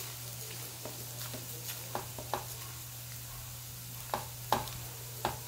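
Spatula stirring whole red chillies and seed spices (coriander, fenugreek, cumin) in a non-stick frying pan over a faint frying sizzle, with about five sharp scrapes and taps of the spatula against the pan in the second half.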